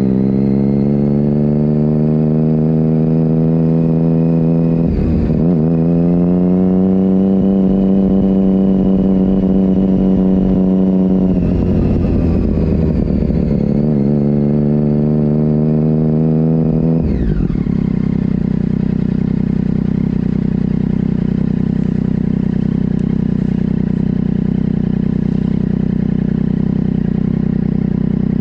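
Motorcycle engine at low speed, its note rising gently in three stretches broken by short dips, then dropping about seventeen seconds in to a steady idle.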